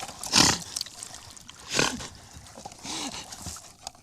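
Wet mud squelching and splashing as a wooden mud board is kicked along across a tidal mudflat, with two louder splashy pushes.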